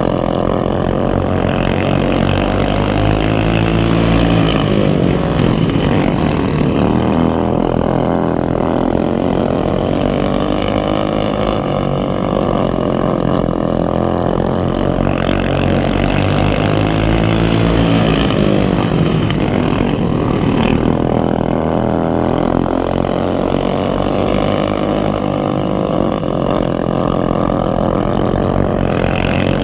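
Racing lawnmower engines running hard throughout, the pitch dropping and climbing back up several times as the engines ease off and rev again.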